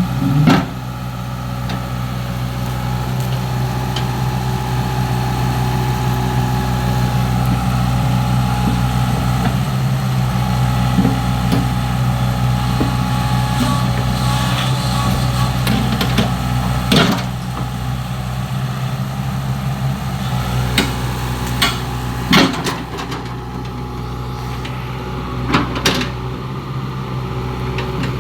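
Excavator's diesel engine running steadily, with several sharp knocks during work on the track, the loudest near the start and about two-thirds of the way through.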